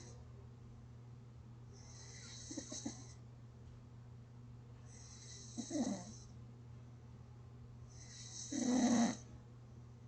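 A person snoring gently and rhythmically: three snores about three seconds apart, each a low rattle with an airy hiss, over a steady low hum.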